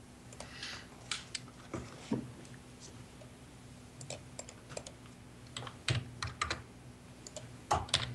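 Computer keyboard typing: scattered, irregular key clicks, a few louder clacks near the end, over a steady low electrical hum.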